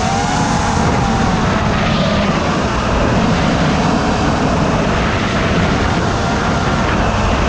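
FPV quadcopter's electric motors and propellers whining, the pitch wavering up and down a little, over a steady rushing noise of air past the drone.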